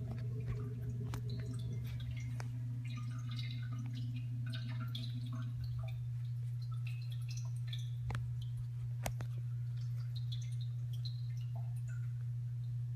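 Water dripping and plinking in an American Standard Cadet toilet tank, scattered short drops with a few sharp clicks, over a steady low hum.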